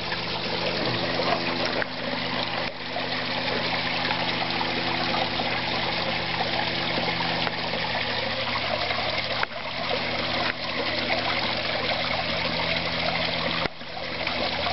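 Steady splashing and trickling of a koi pond's small waterfall and fountain spray falling into the pond, with a steady low hum underneath.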